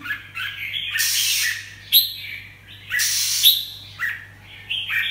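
Caged red-whiskered bulbul calling: a run of short chirps with two longer, harsh, rasping notes about a second and three seconds in.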